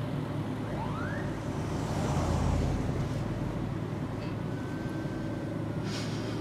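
Steady engine and road noise heard inside a moving car's cabin. It swells briefly about two to three seconds in.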